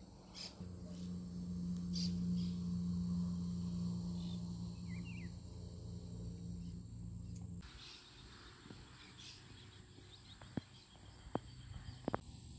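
Insects chirring steadily in a thin high tone. A louder low steady hum swells over the first seconds and stops abruptly about two-thirds of the way through, followed by a few faint clicks.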